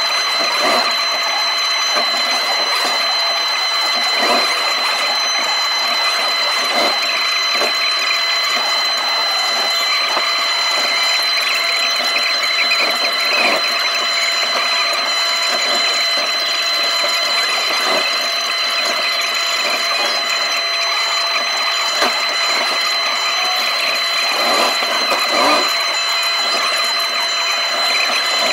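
Takeuchi TB290 compact excavator working, heard from the cab: the engine and hydraulics run with a steady high whine, and scattered knocks and clunks come as the bucket scrapes up and lifts sod.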